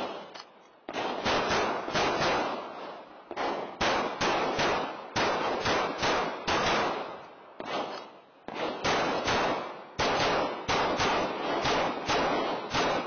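Semi-automatic pistol fired in several quick strings of shots, each string a second or so long, with short pauses between them.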